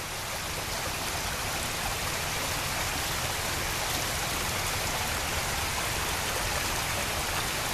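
Floodwater from a burst water line rushing across a parking lot: a steady, unbroken rush that sounds like heavy rain.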